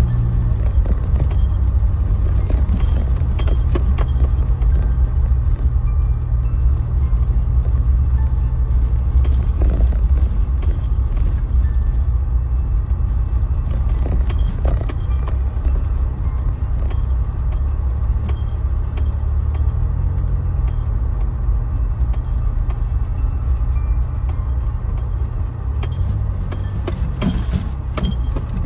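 Car engine and tyre drone heard from inside the cabin while driving slowly over a gravel track, a steady low hum with scattered light rattles. The engine note shifts briefly about twenty seconds in.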